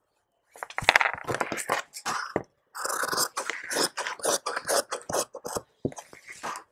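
Large tailoring shears cutting through folded blouse fabric: a quick, irregular run of snips that starts about half a second in.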